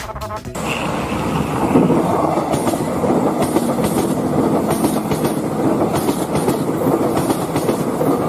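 A vehicle running steadily with a rattling rumble and regular clacks, which starts about half a second in.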